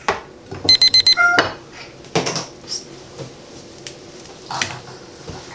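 Plastic and glass food containers being handled on a wooden counter, with scattered clicks and knocks. About a second in comes a quick run of about five short high beeps, the loudest sound here.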